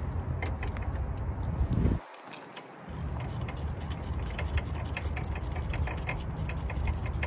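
Hand ratchet wrench clicking in a quick, irregular run as a brake caliper bolt is turned out. A steady low rumble lies underneath and drops out briefly about two seconds in.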